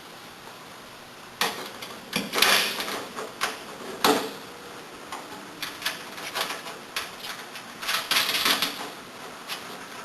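Hands refitting the vacuum's hose shroud and hose assembly: irregular clicks and knocks with a few short scraping or rubbing sounds, starting about a second and a half in.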